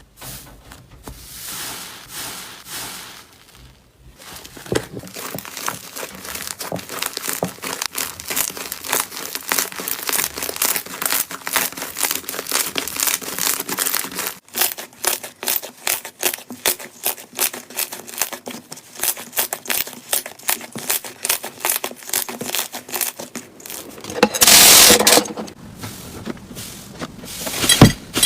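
Slime being squeezed and pressed by hand, giving dense, rapid crackling and popping. It starts with a few soft swishes, and near the end there is one louder squelching burst lasting about a second.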